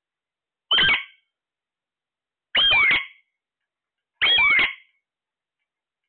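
Alexandrine parakeet calling three times, loud short screeches about a second and a half apart, each dropping in pitch.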